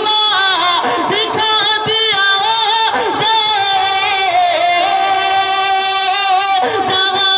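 A man singing a naat, a devotional Urdu poem in praise of the Prophet, in a solo unaccompanied voice. The melody winds through ornamented turns, and a long note is held near the middle.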